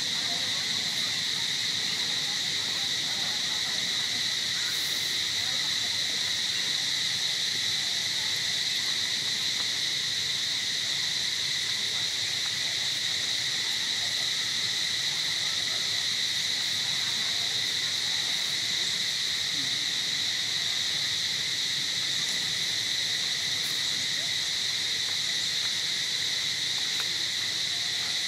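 Steady chorus of insects in the trees, a continuous high-pitched drone with a fainter, lower second tone beneath it, unchanging throughout.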